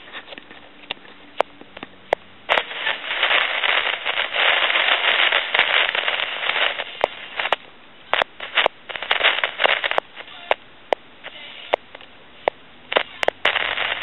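Crackling, sizzling and popping static from a noisy trim potentiometer in the microphone feedback circuit of a Tele Concepts telephone handset as it is touched. Sharp pops come throughout, with a long stretch of loud sizzling hiss from about two and a half to seven and a half seconds in, and more bursts of crackle near the end.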